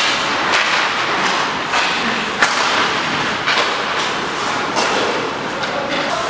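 Ice hockey practice sounds: sharp knocks of sticks on pucks and pucks striking pads, boards or glass, about one a second and loudest about two and a half seconds in, over the steady scrape of skates on the ice.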